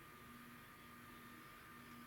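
Near silence: steady faint hiss with a thin, steady high whine.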